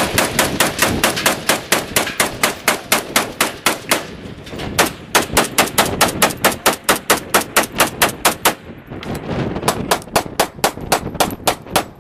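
A rapid, even run of sharp bangs, several a second, breaking off briefly about four seconds in and again near nine seconds before starting up again.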